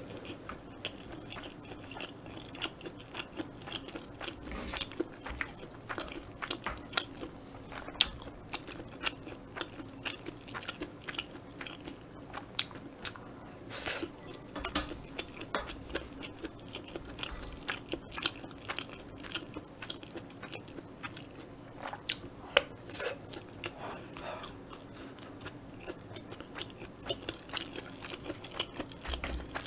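Close-miked chewing and mouthfuls of kimchi fried rice: wet smacking and small crunches in a steady run of clicks, with a few sharper clicks.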